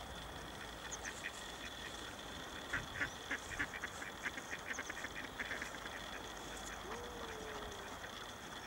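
Ducks quacking faintly in quick runs of short calls, thickest from about three to six seconds in.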